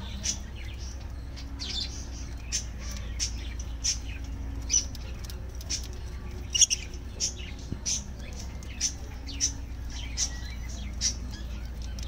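Budgerigars chirping: short, sharp chirps repeated irregularly about every half second to a second, over a steady low hum.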